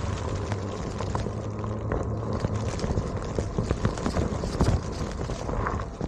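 Onewheel electric board being ridden over loose ground: a steady low hum from the hub motor, with many sharp irregular ticks of small rocks being flung up against the board and rider.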